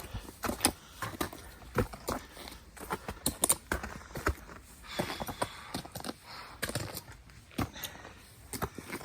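Hiking footsteps on a snowy mountain trail, an irregular series of sharp crunches and clicks, about one or two a second.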